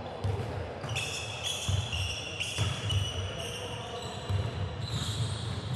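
A basketball being dribbled on a hardwood gym floor, a dull bounce about twice a second, with sneakers squeaking on the court during play.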